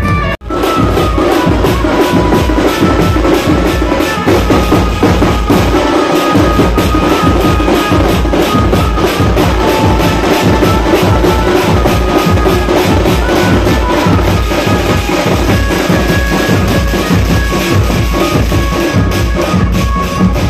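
A troupe of large double-headed bass drums beaten with sticks, playing a loud, fast, steady beat with a melody line over it.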